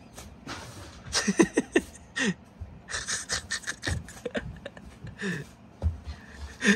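Short breathy laughs and little wordless vocal sounds in several quick bursts, with brief falling-pitched squeals and gasps.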